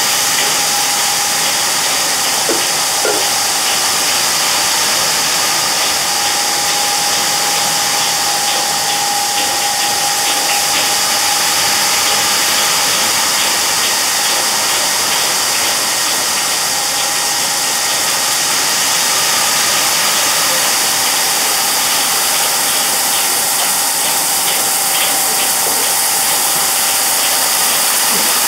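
Small sugar grains hissing steadily as they tumble and slide around a rotating konpeito pan, with faint ticks of grains on the metal. A steady machine hum runs underneath.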